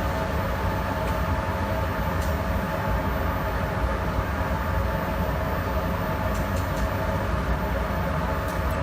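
Electrostatic powder coating equipment running steadily: a constant mechanical hum with several held tones over a rumble and rushing air, with a few faint ticks.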